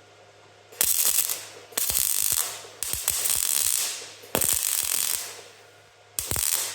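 Wire-feed welder laying short tack welds on thin sheet-metal washers: five separate bursts of sharp crackling, each a second or less, with brief pauses between.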